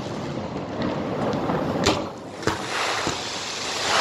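Fireworks going off: a steady hiss with a few sharp bangs in the second half, the loudest about two and a half seconds in.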